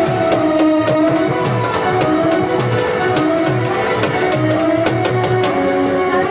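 Instrumental music from a live musical-party band: a melody line played over a steady drum beat.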